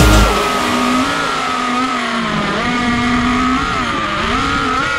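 Diatone Roma L5 FPV quadcopter's motors and propellers whining, the pitch rising and falling with the throttle as it flies.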